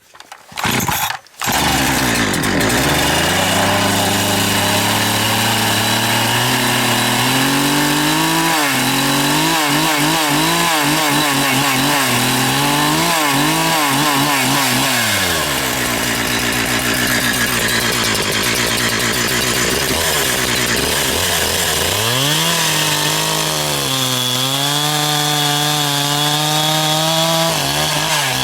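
Two-stroke chainsaw running at full throttle as it cuts through a log, starting about a second and a half in. Its engine note wavers and dips under load, then climbs again.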